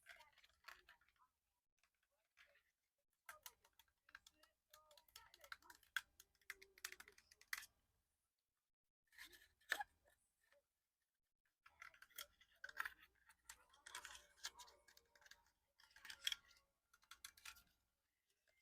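Quick tapping and clicking on an old camera's body, in several bursts of rapid taps separated by short pauses.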